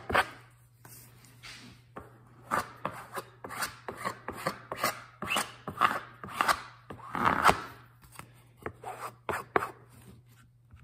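A scrap of cardboard scraping back and forth over glue-soaked fabric on a small plywood board, spreading thinned glue into the weave: a run of short, uneven rubbing strokes.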